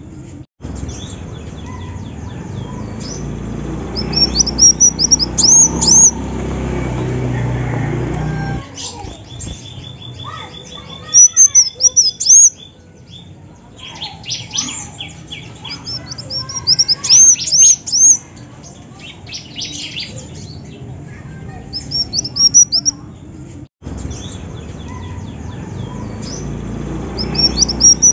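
Female kolibri wulung, a sunbird, calling: short bursts of high, quick twittering chirps every few seconds, with a denser run of calls in the middle. A low background rumble fades out partway through and comes back near the end.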